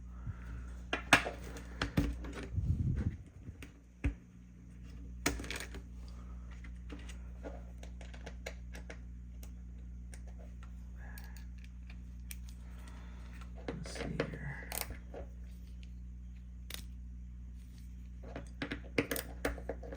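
Small metal parts of a mechanical push-slider fidget toy being handled: scattered light clicks and taps of metal pieces against each other, over a steady low hum.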